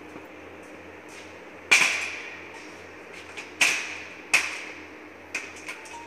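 Three loud knocks, about two seconds and then under a second apart, each ringing out in the echoing metal-walled shed, followed by a few lighter clicks near the end, over a steady low hum.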